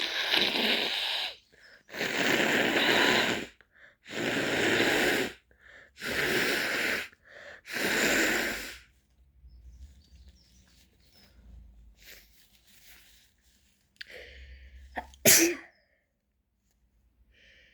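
A little girl sneezing over and over in an allergy attack: five long sneezes about two seconds apart, then a pause and one sharp sneeze near the end.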